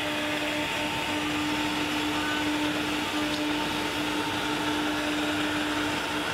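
CNC router spindle engraving three-layer King Color Core HDPE plastic, a steady whine with one held tone, over the even rush of the dust-extraction vacuum pulling through the dust shoe.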